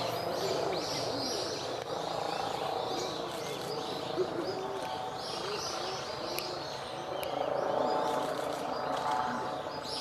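Wild birds calling: many short, high chirps with quick falling notes, over soft, low, repeated call notes.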